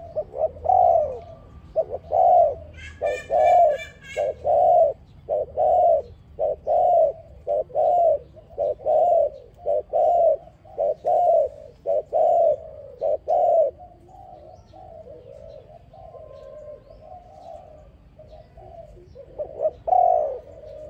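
Spotted dove cooing: a long run of loud, rounded coo notes repeated in quick succession, then softer, quieter cooing for several seconds, and loud coos again near the end. A small bird chirps briefly about three seconds in.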